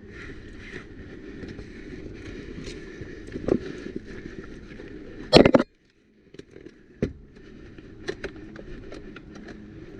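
A few sharp single airsoft gun shots a second or two apart, the loudest about halfway through, over steady rustling and movement noise.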